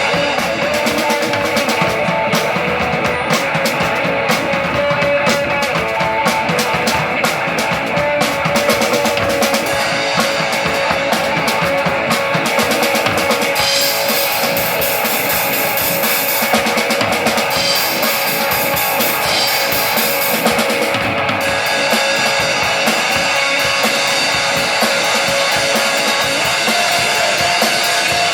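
A live rock band playing loudly: drum kit with kick and snare, guitar and bass. Cymbals wash in strongly through the middle stretch.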